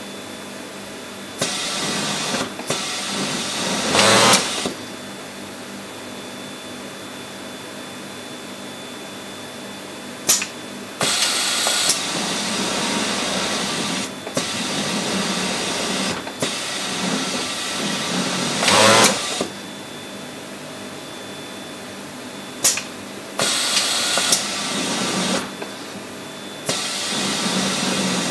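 Pegasus industrial overlock serger stitching in three bursts of a few seconds each, stopping in between while the fabric is repositioned. The first two runs end in a brief, louder hiss. A steady low hum lies under the pauses.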